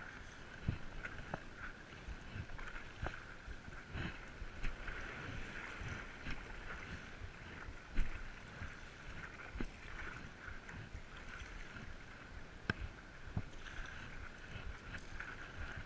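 Paddling a stand-up paddleboard: water washing and lapping against the board and paddle, with irregular small splashes and knocks from the paddle strokes over a steady hiss. The sharpest knocks come about eight and thirteen seconds in.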